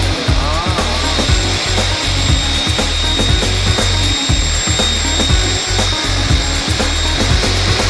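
Automatic hydraulic aluminium circular saw with an 18-inch blade running, a steady machine noise with a thin high whine and frequent irregular clicks. The whine grows stronger about three seconds in.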